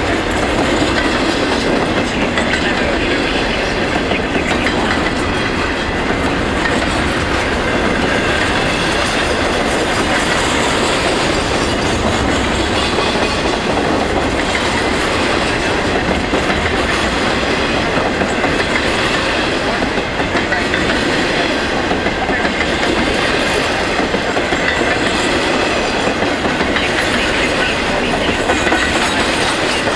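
Double-stack container cars of a freight train rolling past, a steady, loud noise of steel wheels on the rail.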